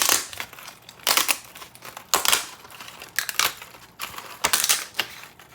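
3D-printed PLA chainmail-style 'NASA fabric' being flexed and scrunched by hand, its small interlocking plastic links clattering and crinkling in about five bursts, roughly one a second.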